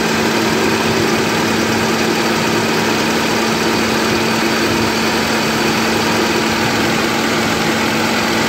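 Hyundai Atos fuel-injected engine idling steadily, at a raised idle because the idle air screw on its throttle body has been opened to let in more air.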